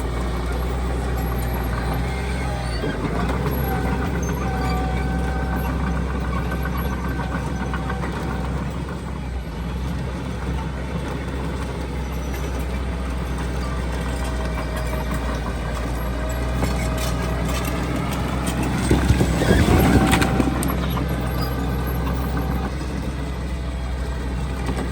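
Heavy diesel earthmoving machinery running steadily, with whining tones that come and go above the engine hum and a louder rushing surge about four-fifths of the way through.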